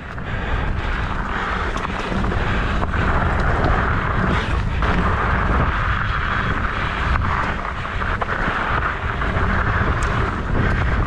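Riding noise from a Trek Stache 29+ hardtail mountain bike on a rocky desert trail: its 3-inch-wide tyres rolling over dirt and rock, with scattered clicks and rattles from the bike, under a steady low rumble of wind on the microphone.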